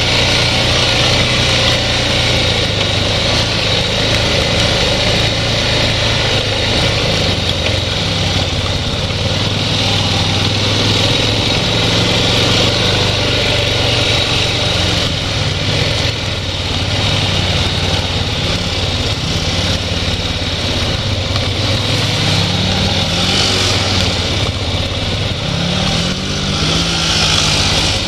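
ATV engine running steadily, with a couple of short rises and falls in engine speed near the end.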